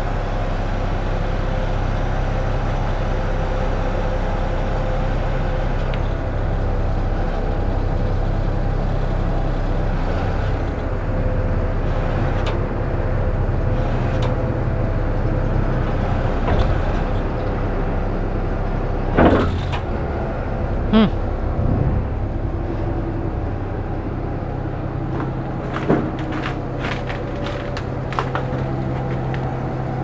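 Steady mechanical drone of a truck engine running, driving the hydraulics of an Amco Veba truck-mounted knuckle-boom crane as the boom folds down into its stowed position. A few short clunks come a little past halfway, and another near the end.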